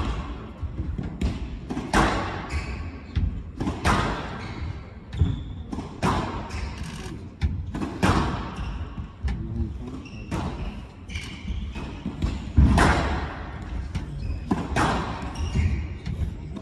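Squash rally on a glass-walled court: repeated sharp cracks of the racket striking the ball and the ball hitting the walls, about one every one to two seconds, each with a short ringing echo.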